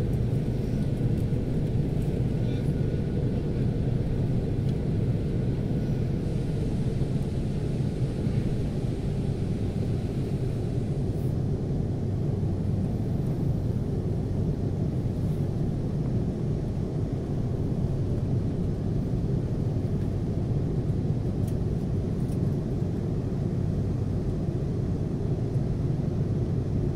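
Steady low rumble inside an airliner's cabin as it taxis: the jet engines running at low taxi thrust under the hum of the cabin, with the wheels rolling on the taxiway.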